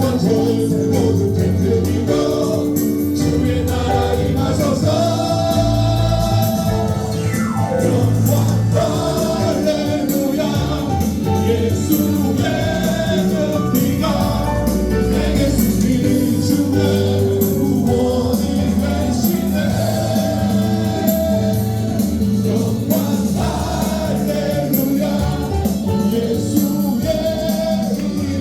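Christian gospel praise song: a group of voices singing together over a band with a steady beat.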